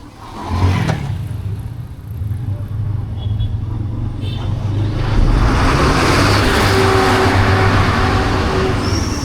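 Motorbike engine running steadily with a low drone while riding through town. A loud rush of air and traffic noise swells up about halfway through.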